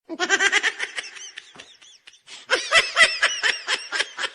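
Laughing ringtone: quick ha-ha-ha laughter, several pulses a second, starting suddenly out of silence. It tails off after about a second and a half, then comes back louder about two and a half seconds in.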